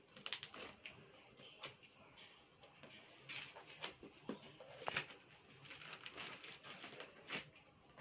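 Plastic courier bag crinkling and crackling as it is cut open with scissors and handled, with scattered sharp snaps and rustles.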